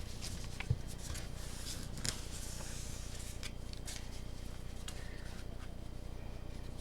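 Trading cards and pack wrapping being handled: scattered light clicks and rustles, the sharpest about two seconds in, dying away over the last second or two, over a low steady hum.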